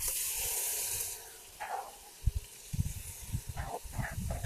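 Hot oil in a cooking pot sizzling with a high hiss that cuts off about a second in, followed by a run of soft knocks.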